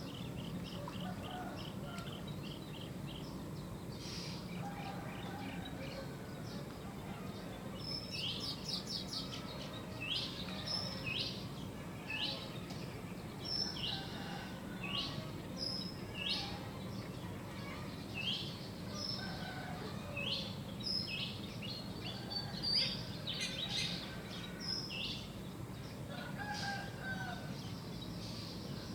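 Small birds chirping, with a quick trill near the start, then many short, sharp, falling call notes repeated every second or so, over a steady low background rumble.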